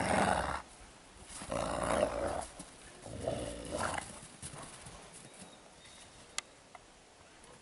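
Wolves snarling and growling at each other in three loud outbursts during a scuffle, the last one a little more than halfway through; after that only faint movement and one sharp click.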